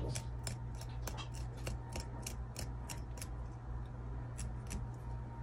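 Quick crisp clicks of a small metal tool picking and snipping at an African violet's stem, about three a second, stopping shortly before the end. The stem is being stripped of old leaves and tissue so that it roots better.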